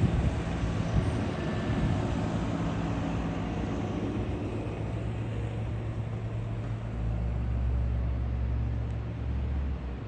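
Steady low rumble of motor traffic with engine hum, which deepens and grows louder from about seven seconds in.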